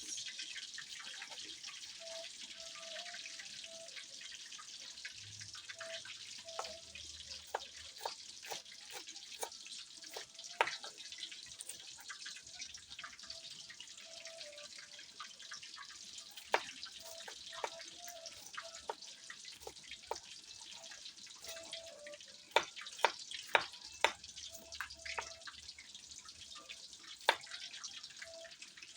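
Pork leg deep-frying in hot oil for crispy pata: a steady sizzle with scattered sharp pops and crackles, a cluster of louder pops late on.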